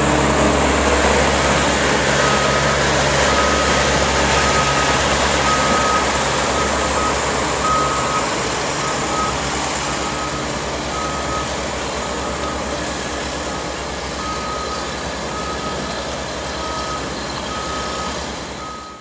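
Heavy diesel paving machinery running steadily, an asphalt paver and dump truck, with a vehicle's reversing alarm beeping over it over and over from about two seconds in.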